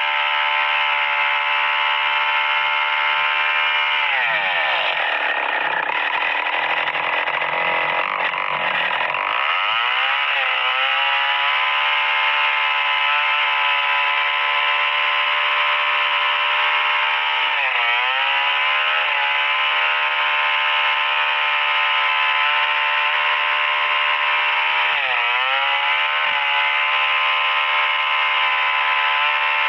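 STIHL 070 chainsaw, a large two-stroke, running near full throttle while cutting lengthwise through a merbau hardwood log. Its pitch drops as the saw bogs under load about four seconds in and climbs back several seconds later, with two brief dips further on as the cut is worked back and forth.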